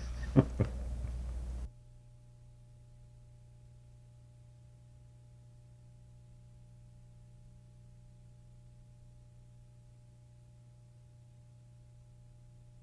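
Near silence: a short click near the start, then the background drops away, leaving a faint steady electrical hum.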